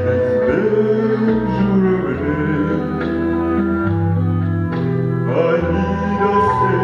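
Music: a slow song's backing track with long held bass notes played over the hall's loudspeakers, with a man singing into a hand microphone at moments.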